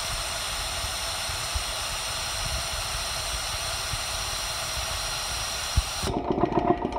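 Steady hiss of compressed air leaking from the pressure switch of a McGraw 20-gallon oiled air compressor. About six seconds in, the hiss cuts off and the electric motor tries to kick back on, giving a rapid pulsing hum as it stalls: the motor is locking up, which trips the breaker.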